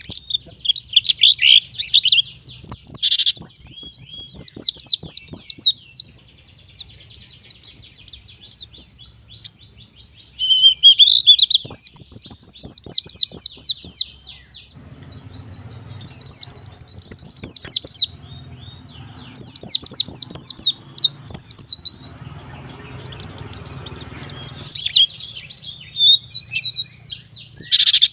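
White-eye (pleci) singing vigorously: bouts of rapid, high, fast-sweeping notes a few seconds long, broken by short pauses. A faint low hum sits under the pauses in the middle.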